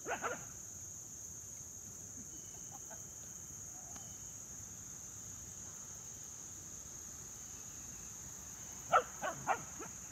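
Dog barking: one short bark at the start, then a quick run of four barks about nine seconds in, over a steady high drone of insects.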